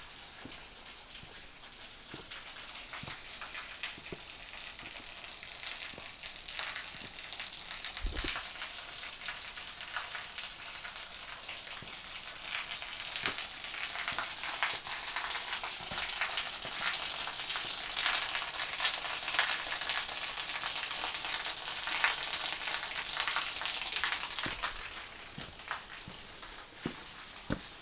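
Water splashing at a small waterfall: a steady hiss that grows louder toward the middle and falls away sharply near the end. Scattered light footsteps on stone paving run through it.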